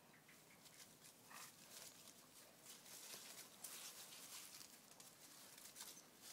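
Near silence, with faint scuffling and pattering from two dogs tugging on a toy.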